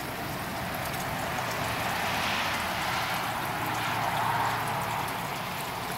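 Water running and trickling steadily through an aquaponics system's tanks and plumbing, swelling a little in the middle.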